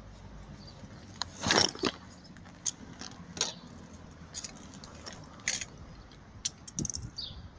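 Handling noise: scattered clicks, taps and rustles as a phone is handled and moved over a wooden bench, with the loudest rustle about a second and a half in.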